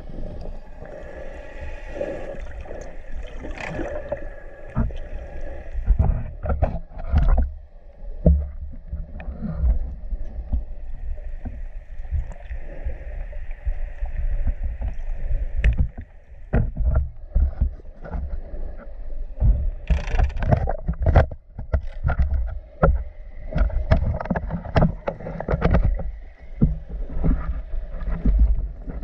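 Underwater camera recording: water sloshing and buffeting against the camera housing as the swimmer moves, with irregular low thumps and bubbling throughout. A faint steady hum of several pitches runs under it in the first half.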